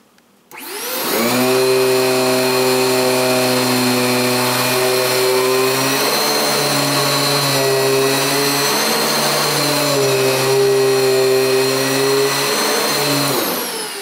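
Riccar Brilliance R30P upright vacuum cleaner switched on, spinning up about half a second in, then running steadily with a whine while it is pushed over a sanded carpet mat. Near the end it is switched off and winds down, the pitch falling.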